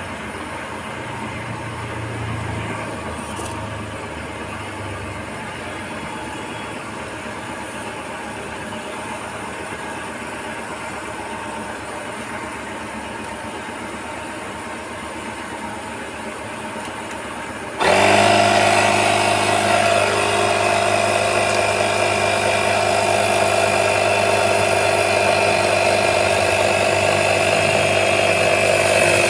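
Portable digital tyre inflator's electric compressor running steadily, pumping air into a scooter tyre as the pressure climbs. About 18 seconds in, the sound abruptly becomes much louder and stays loud.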